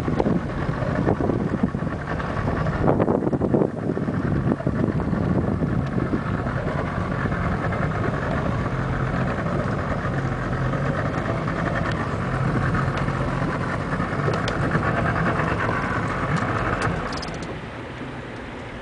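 An engine running steadily as a low drone, with gusts of wind buffeting the microphone in the first few seconds; the drone falls away to a quieter level near the end.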